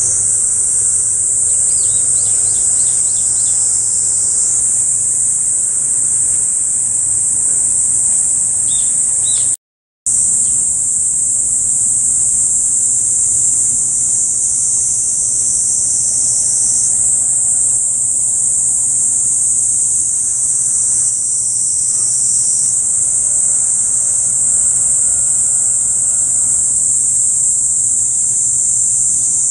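Dense, steady chorus of insects, a shrill high buzz, with a few faint bird chirps in the first few seconds. The sound cuts out for a moment about ten seconds in.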